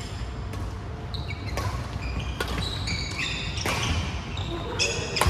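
Badminton rally: rackets striking the shuttlecock in sharp cracks about once a second, with players' shoes squeaking on the wooden court floor.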